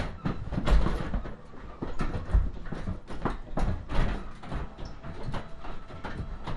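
Rapid, irregular knocks, thumps and rustling, several a second, with the heaviest thumps about a second in and again about two and a half seconds in.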